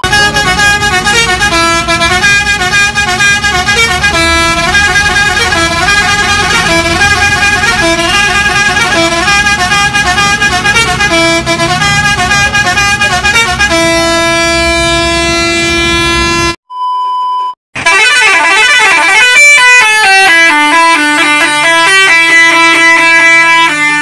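Truck musical pressure horns, multi-trumpet air horns, playing quick tunes of changing notes over a low engine rumble. The first tune ends in a long held chord, then a short steady test-tone beep sounds. A second horn tune starts with a fast sweep in pitch.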